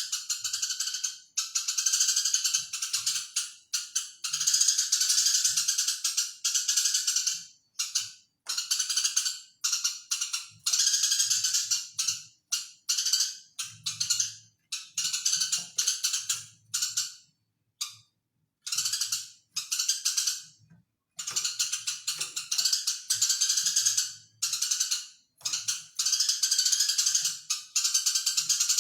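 Eurasian tree sparrow chattering in fast, dense runs of chirps lasting a few seconds each, broken by short pauses.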